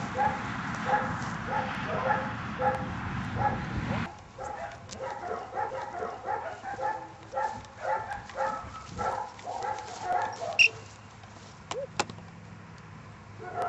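A dog barking over and over, about two barks a second, until about ten seconds in.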